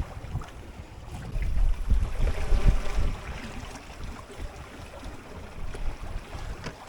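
Wind buffeting the microphone over the wash of waves against a small sailboat under sail, swelling louder for a second or two about two seconds in.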